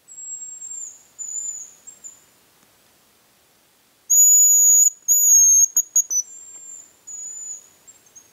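Hazel grouse whistling calls: thin, very high whistled notes, a quieter pair first, then about four seconds in a much louder run of two long notes followed by short clipped ones and a few more drawn-out notes.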